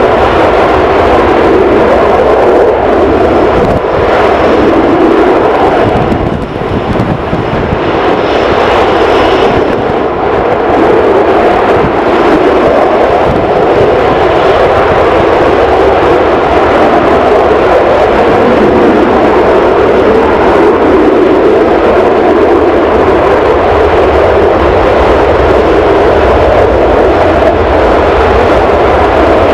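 Panavia Tornado jet's twin RB199 turbofan engines running loud and steady, with a short dip about six seconds in.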